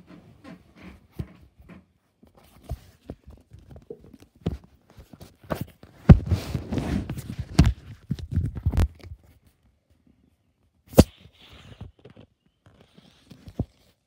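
Handling noise on a phone's microphone: fingers rubbing and tapping the phone, with scattered sharp knocks. A louder stretch of rubbing and rustling runs from about six to nine seconds in, and one sharp knock comes about eleven seconds in.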